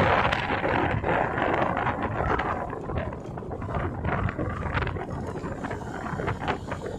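Wind buffeting the microphone of a moving motorcycle, with road and engine noise underneath.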